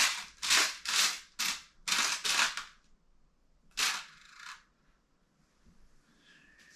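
Rummaging through plastic bags of small parts in a kit box: a quick run of short crinkling rattles, six in the first two and a half seconds and one more about four seconds in.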